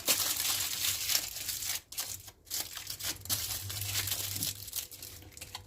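Aluminium foil crinkling and rustling as it is folded and wrapped around a potato, with short pauses around two seconds in.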